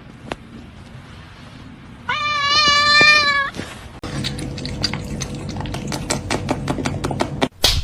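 A cat gives one long, slightly wavering meow lasting about a second and a half. After it comes a quick run of sharp clicks or taps.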